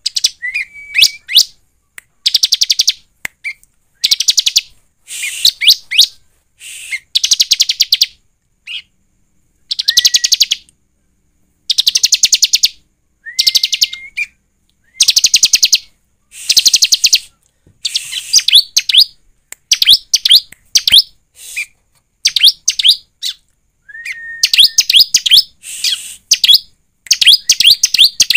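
Bar-winged prinia (ciblek) singing: repeated loud, rapid high trills about a second long, several of them led by a short whistled note, with a quicker run of short notes near the end.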